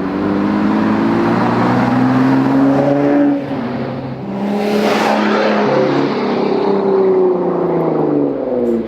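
Jeep Wrangler JK's 3.6L Pentastar V6 through an AWE Tread Edition exhaust, accelerating. The exhaust note rises in pitch, drops about three and a half seconds in as the transmission shifts up, then climbs again.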